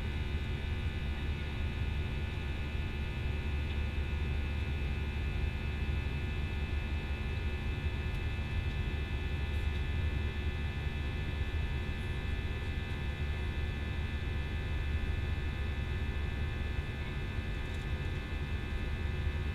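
Airbus A320 passenger cabin noise in flight after take-off: a steady low rumble of the engines and airflow, with a steady high whine layered over it.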